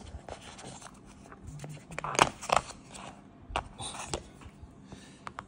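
Handling noise as an AirPods Pro charging case is taken out of its white cardboard box: fingers scraping and tapping on the box, with scattered clicks and knocks, the loudest a pair about two seconds in.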